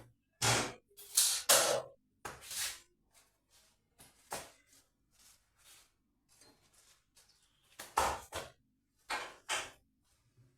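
A series of irregular sharp knocks and clatters, several in quick succession at the start and a few more near the end, typical of wooden MDF pieces being handled and set down during cabinet work.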